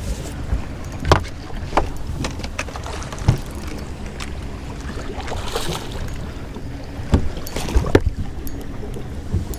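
Wind rumbling on the microphone, with a few short sharp splashes and knocks as a hooked smallmouth bass thrashes at the surface beside the boat.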